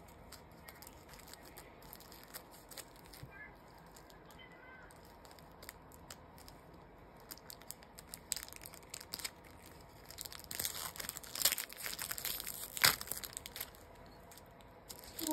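Foil wrapper of a Pokémon booster pack being torn open and crinkled by hand: faint at first, then a run of crinkles and rips in the second half with one sharp, loud crackle near the end.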